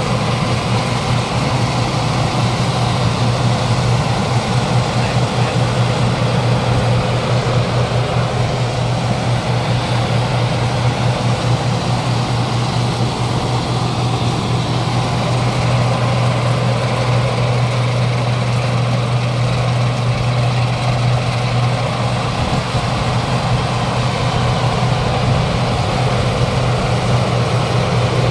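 Chinese-made '120' rice combine harvester running steadily while cutting rice: an unbroken low engine drone with a dense, even mechanical noise above it.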